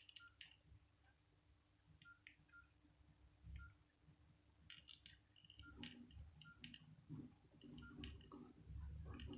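Near silence with faint, scattered clicks and short high pips from a Nokia N73's keypad buttons being pressed, with soft low handling rumbles in the second half.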